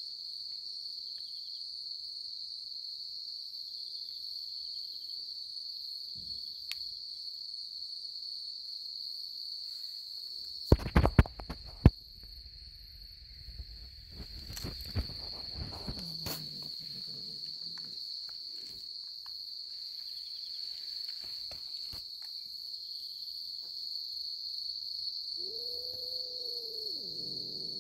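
Crickets chirping in a steady high trill, with a few loud knocks about eleven seconds in. Near the end a kitten gives one long meow that rises and falls in pitch.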